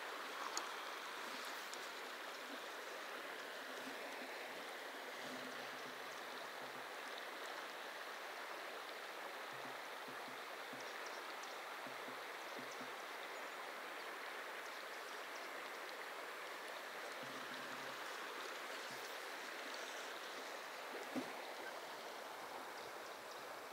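Steady rushing hiss of river water flowing over a shallow run, with two brief faint clicks, one just after the start and one near the end.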